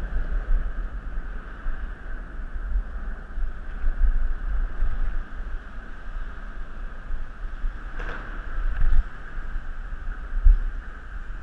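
Wind buffeting the microphone of a camera carried on a moving bicycle, with a steady rolling hiss and low rumble from the ride. Two sharp knocks come about two-thirds of the way through and again near the end.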